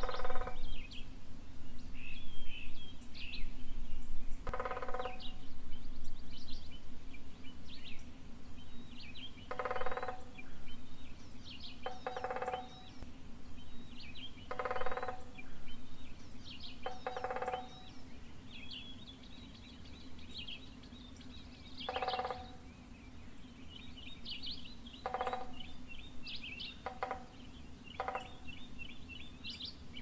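A woodpecker drumming on a pole-mounted metal transformer casing: about ten rapid rolls, each under a second and ringing with a metallic tone, a few seconds apart. Other songbirds sing throughout, over a steady low hum.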